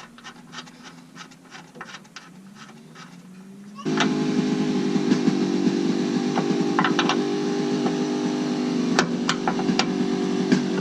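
Light clicking as a brake-line fitting is threaded on by hand. About four seconds in, a much louder steady hum with several even tones starts suddenly and keeps going.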